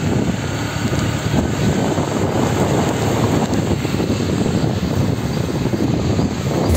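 Motorcycle on the move on a rough dirt road: a steady mix of engine and rushing wind noise.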